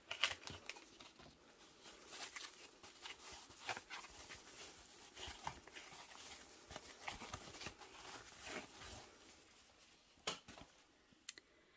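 Thin foam packing wrap handled and unrolled by hand: faint, scattered soft rustles and crinkles with small clicks, thinning out over the last two seconds.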